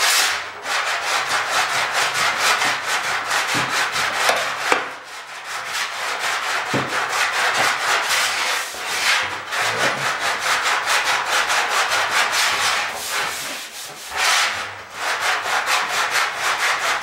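A small abrasive block hand-sanding bare sheet steel on a car body panel, in quick back-and-forth scraping strokes with short pauses about 5 and 14 seconds in. The sanding knocks down the high spots to show what is still low in a dent repair.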